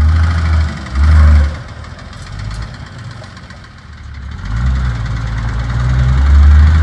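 Nissan Patrol's diesel engine working under load on a rock climb: two short revs in the first second and a half, then back near idle, then revving up steadily again toward the end.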